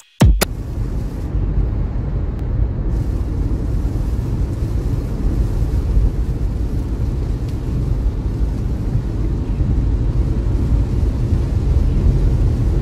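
Steady low rumble inside a car's cabin while driving through a downpour: tyre and road noise with rain on the car.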